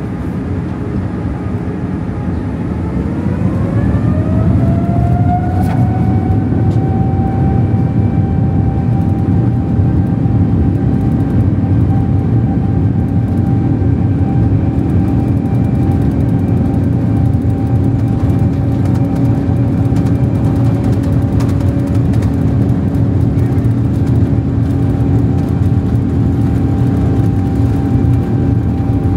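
Rolls-Royce Trent 1000 turbofan of a Boeing 787-9, heard from inside the cabin, spooling up a few seconds in. Its whine rises in pitch and then holds steady over a low cabin rumble: thrust added to taxi the airliner onto the runway.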